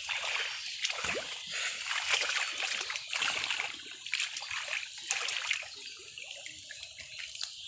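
Water splashing and sloshing in irregular bursts, quieter over the last couple of seconds.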